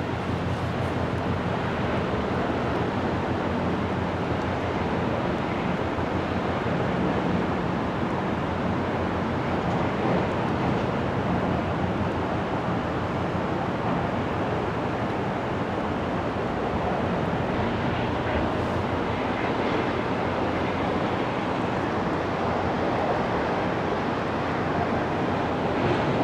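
Steady wind noise on the microphone over a low, even diesel engine drone from the container ship and the harbour tug towing at her stern.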